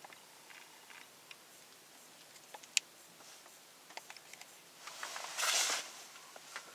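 Faint, scattered small clicks and ticks close to the microphone, one sharper click near the three-second mark, and a brief rustle about five and a half seconds in.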